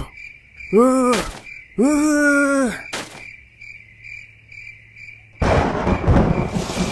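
Crickets chirping steadily while a man strains twice in long, rising-then-falling grunts as he pushes a car. About five and a half seconds in, heavy rain suddenly starts pouring.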